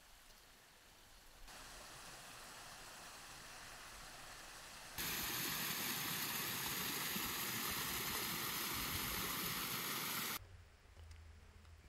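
Small waterfall splashing down over rocks: a steady rush of falling water. It comes in about a second and a half in, gets much louder about five seconds in, and cuts off abruptly near the end.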